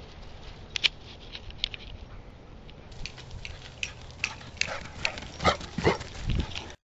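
Dogs playing together, a scatter of short, sharp sounds from them that grows busier about halfway through. The sound cuts out suddenly shortly before the end.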